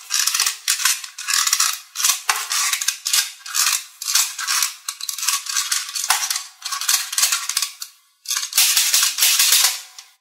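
Loose glitter being scooped and stirred with a plastic toy claw in a plastic tub, a rattling hiss in repeated strokes with a brief break near the end.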